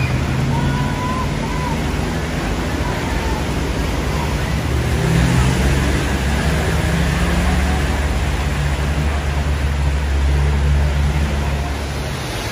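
Traffic driving through deep floodwater: vehicle engines running under a steady wash of water, with a low rumble that grows stronger about halfway through.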